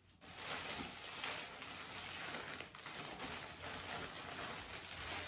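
Plastic packaging bags crinkling and rustling as they are handled, starting suddenly just after the start and going on steadily.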